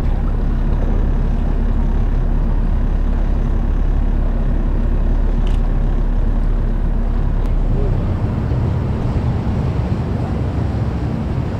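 Steady low engine drone with noise over it; its tone changes at a cut about eight seconds in.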